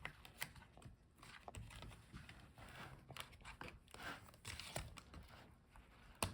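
Faint scattered small clicks and light scraping from hands working inside an opened laptop, disconnecting the battery cable.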